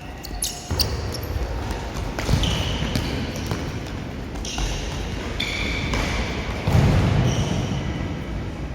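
Indoor futsal play: thuds of the ball being kicked and bouncing, with short high squeaks of shoes on the court floor. The loudest thud comes about seven seconds in.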